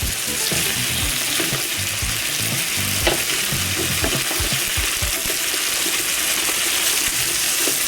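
Chicken, mushrooms, onion and shrimp sizzling steadily in hot coconut oil while being stirred and turned in the pan, with irregular knocks and scrapes of the utensil against the pan.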